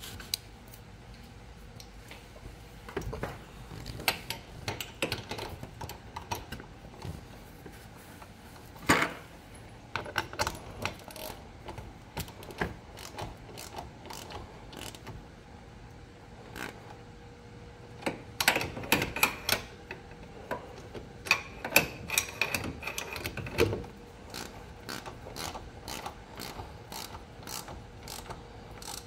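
Irregular metallic clicks and rattles of bolts and hand tools being worked on a Honda PCX scooter's engine case, in scattered clusters.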